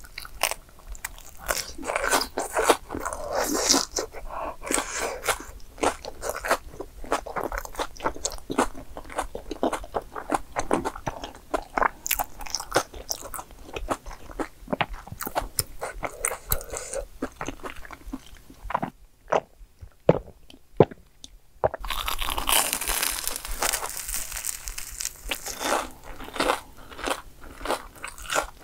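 Close-up biting, crunching and chewing of fried, crumb-coated cheese balls. It goes quieter for a few seconds past the middle, then a loud run of crisp crunching follows as she bites into a breaded mozzarella hot dog.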